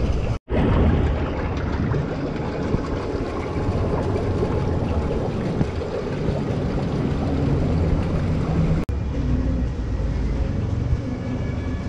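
Steady low rumbling background noise, cut off sharply by two brief dropouts: one just after the start and one about nine seconds in.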